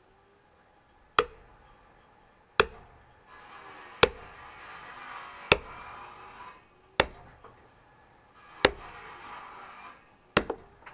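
Axe chopping into a log to split firewood: seven sharp, evenly spaced strikes about a second and a half apart.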